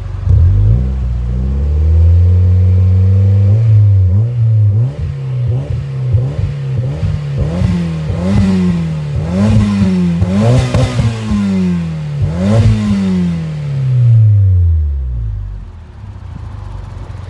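Toyota Celica GT-FOUR (ST205) 3S-GTE turbocharged 2.0-litre four-cylinder revved through a SARD metal sports catalyst and Fujitsubo Super Ti Hybrid titanium-tipped muffler. The revs rise quickly and hold for a few seconds, then come several quick throttle blips, each climbing and dropping in pitch. The revs fall back and settle to idle near the end.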